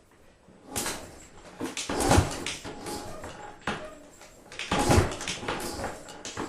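Repeated kick-start attempts on a 1981 Honda XL500S's 500 cc four-stroke single: each kick spins the engine over briefly without firing, with the two hardest kicks about two and five seconds in. It won't catch because the fuel valve is shut.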